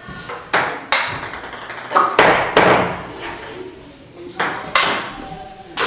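Ping-pong ball hit back and forth in a rally: sharp clicks of the ball on the paddles and bouncing on the table. About eight hits come in quick, uneven succession, each with a short echo off the concrete walls.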